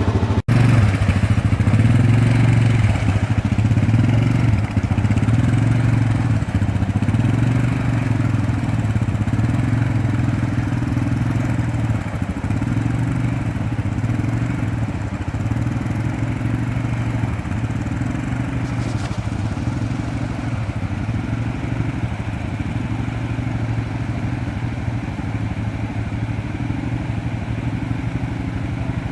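ATV engine running steadily with a low, even hum, easing slightly in loudness over time.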